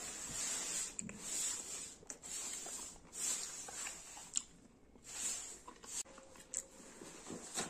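Close-up chewing and wet mouth sounds of someone eating strips of curried skin, in short bursts about a second apart with a couple of sharp clicks.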